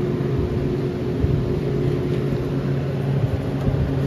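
Steady low hum of a refrigerated glass-door display cooler running, two low held tones over an even whir.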